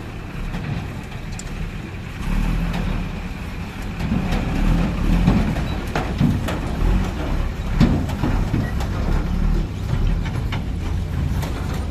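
Heavy diesel dump truck running at low speed close by as it crosses railway tracks. The engine grows louder from about two seconds in, and several clanks and knocks come in the middle as the wheels and tipper body jolt over the rails.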